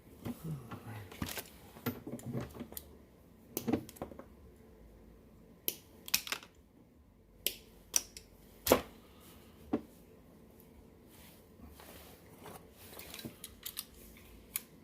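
Irregular clicks, taps and small snips of hand tools on wire: headlight harness wires being stripped by hand without wire strippers. The sharpest click comes a little past halfway, with a few quick clusters of clicks around it.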